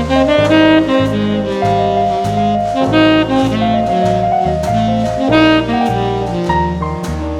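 Background jazz music: a saxophone playing a melody over a walking bass line and drums.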